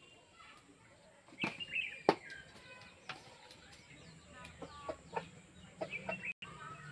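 Chickens clucking in short calls, with two sharp knocks about one and a half and two seconds in, the second the loudest sound.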